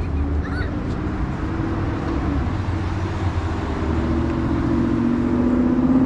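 Road traffic: a vehicle engine running steadily and growing louder toward the end, over low wind rumble on the microphone, with a couple of short bird chirps near the start.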